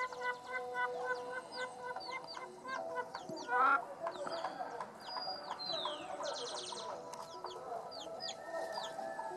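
Chickens clucking with small birds chirping and whistling throughout, and one louder call about three and a half seconds in.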